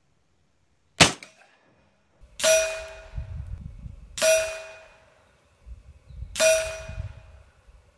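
Air rifle shooting session: a sharp crack about a second in, then three metallic pings about two seconds apart, each ringing out and dying away. The pings are .22 pellets from an FX Monsoon PCP air rifle striking the steel behind the target.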